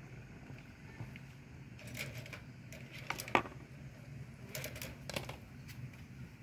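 Scattered sharp metallic clicks and snaps of pliers twisting and snipping wire to bind a bamboo spit frame. The loudest is a single snap about three seconds in, with a short cluster of clicks about five seconds in, over a steady low hum.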